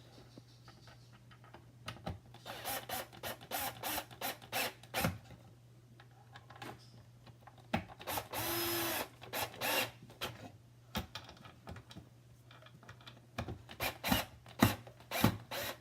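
Cabinet hardware being fitted by hand: scattered clicks and scrapes in clusters. A cordless drill with a Phillips driver bit runs once for about a second, just past the middle, driving a handle screw.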